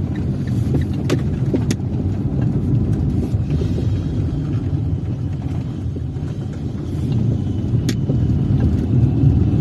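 Car driving slowly over wet paving-block streets, heard from inside the cabin: steady, low engine and tyre noise, with a few sharp clicks.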